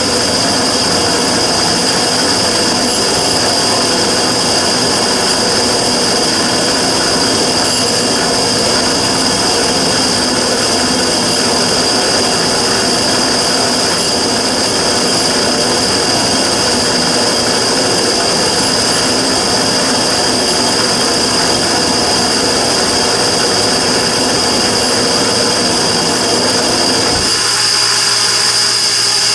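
Immersion tube burner running with a steady high-pitched whine over a loud, rough, noisy sound: the abnormal noise being recorded. About two seconds before the end, the lower, rough part cuts off suddenly while the whine carries on.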